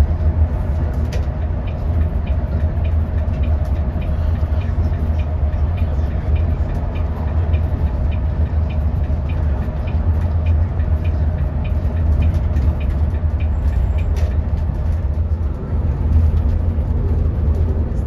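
Steady low rumble of a moving bus or train heard from inside, with a light, regular ticking through much of it.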